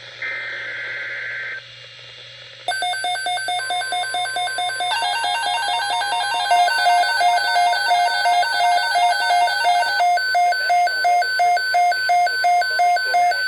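Emergency Alert System alert: a short burst of data tones, then a weather alert receiver beeping rapidly, about two to three beeps a second, over the steady 1050 Hz NOAA Weather Radio warning tone. Together they signal a severe thunderstorm watch.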